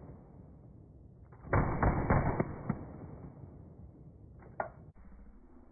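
Full-auto Intratec TEC-9 9mm machine pistol firing a short burst of about six rapid shots about a second and a half in, followed by one fainter bang a couple of seconds later.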